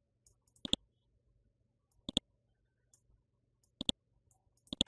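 Computer mouse button clicking: four quick press-and-release double clicks, spaced one to two seconds apart.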